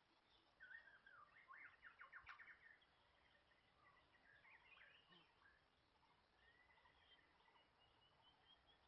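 Faint birdsong: scattered chirps and gliding whistles, a quick trill about two seconds in, and a run of short high notes near the end.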